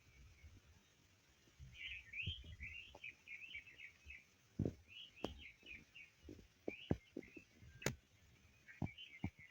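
Songbirds chirping in quick repeated phrases, with scattered soft clicks and taps mixed in, one sharper click about eight seconds in.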